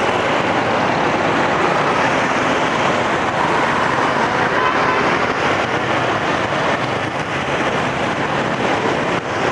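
Steady road and wind noise from riding a motorbike through city traffic: an even rush with no distinct events.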